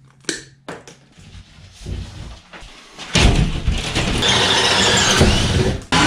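Light clicks and rustling from handling wire, then about three seconds in a cordless drill starts and runs steadily, boring a hole through a wooden wall stud, with a brief stop just before the end.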